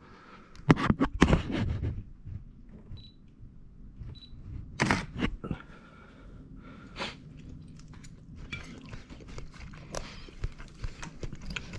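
Kitchenware handling: loud knocks and scrapes about a second in and again around five seconds in, then a run of lighter clicks near the end.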